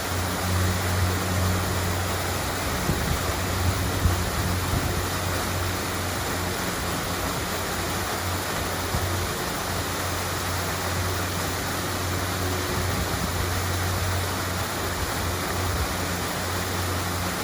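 Waterfall rushing as a steady, even wash of falling water, with a steady low hum underneath.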